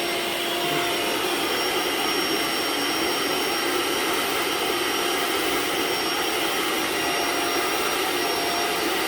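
Hoover OnePower cordless carpet cleaner running steadily, its motor noise holding a constant high whine while cleaning a spot.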